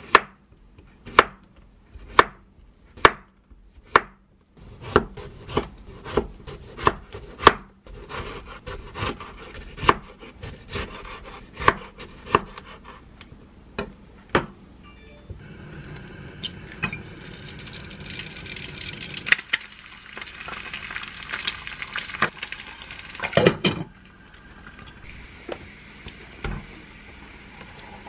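Kitchen knife cutting through vegetables onto a wooden cutting board: sharp, evenly spaced chops about one a second, then quicker, lighter cuts. In the second half the chopping gives way to a steady rustling of hands handling the food, with a few knocks on the board.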